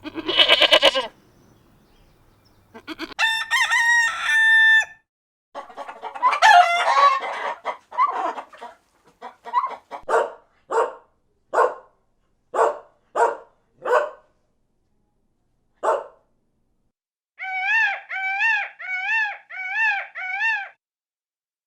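Chickens: a rooster crowing, then a hen clucking in a run of short calls about one a second, and near the end five quick repeated calls that rise and fall.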